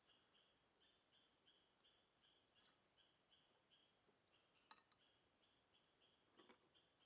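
Faint, evenly repeated chirping, about three short chirps a second, with a sharp click near the middle and a brief rustle near the end.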